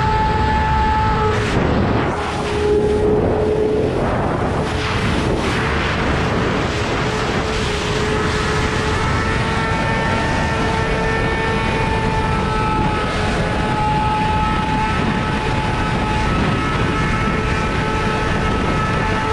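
Yamaha R6 inline-four with an Akrapovič full-system exhaust running at high revs while riding at speed, under heavy wind rush on the onboard microphone. The high engine note dips and breaks up in the first few seconds, then holds a steady pitch.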